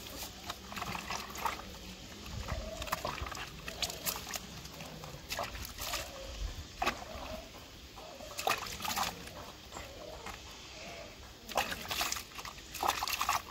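Water sloshing and splashing around a German Shepherd puppy being bathed, with the puppy giving short whimpers again and again.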